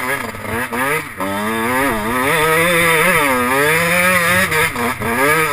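Kawasaki KX dirt bike engine under ride, its pitch rising and falling over and over with the throttle, dropping sharply about a second in and again near the end.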